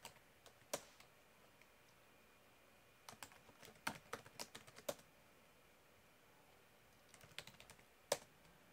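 Faint computer keyboard typing in short runs: one keystroke about a second in, a quick run of keystrokes around the middle, and another run near the end finishing on a sharper key press.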